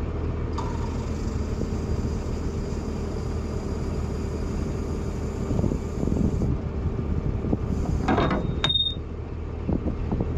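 John Deere 710D backhoe's diesel engine running steadily, with irregular metallic clanks and knocks in the second half and a brief high squeal near the end.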